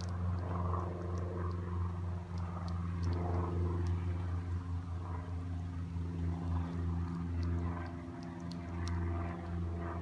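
Wind gusting through cottonwood leaves, a rushing rustle that swells and fades, over the steady low hum of an idling car engine. Scattered light ticks sound throughout.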